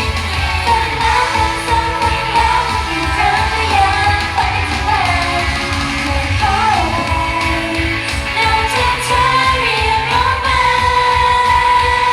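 Pop song with female singing over a steady beat, played through a concert sound system.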